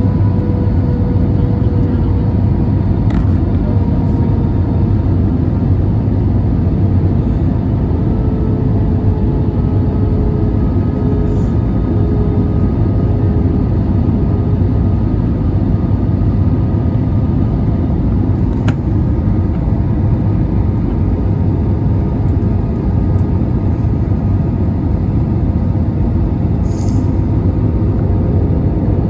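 Airbus A320 cabin noise: a steady drone of the jet engines and airflow, with a low hum and faint tones that drift slightly in pitch. A few faint clicks.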